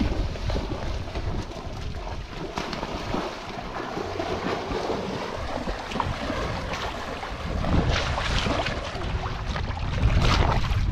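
Water splashing as a person and a dog run and wade through shallow river water, with wind buffeting the microphone.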